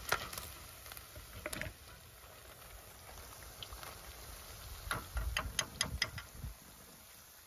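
Wire skimmer clicking and tapping against an enamel frying pan as fried fish is lifted out of the hot oil, over a faint sizzle of the oil. There is a quick run of clicks about five seconds in.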